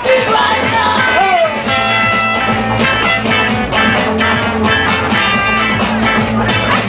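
Live band music, dub and ska-style, with a steady drum beat, bass and guitar; a vocal line slides up and down near the start, then the instruments carry on.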